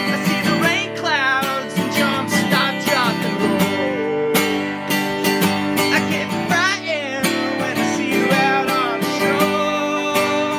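Acoustic guitar strummed and picked in a steady rhythm, with ringing chords and some bent notes: the instrumental introduction of a song before the vocals come in.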